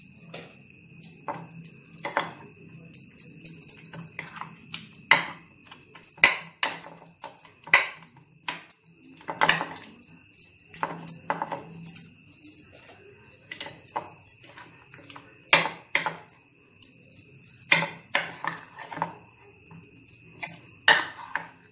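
Metal spoon scraping and clinking against a ceramic bowl while thick mustard paste is worked over pieces of hilsa fish. The clicks and scrapes come at irregular moments, a second or two apart.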